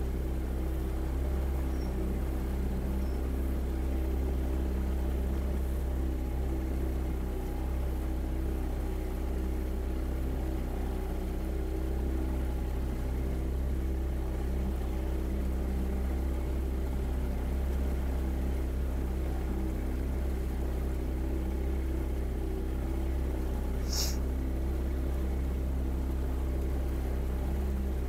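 Motorboat engine running steadily at an even pitch as the boat cruises along. About four seconds before the end, one short, sharp click.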